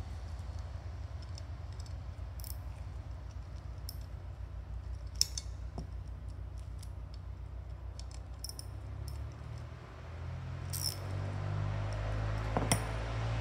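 Scattered small metallic clinks and ticks of a hand socket ratchet and wrench on the steel bolt and nut of a Cessna 150 nose gear strut's torque links, the sharpest about five seconds in. Under them runs a steady low hum that grows louder near the end.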